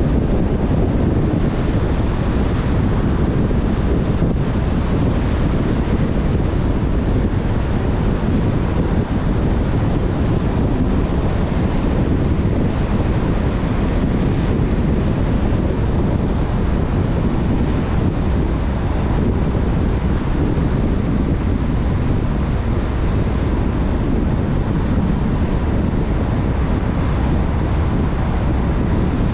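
Steady wind noise buffeting the microphone of a vehicle moving at highway speed, over a constant low rumble from the road.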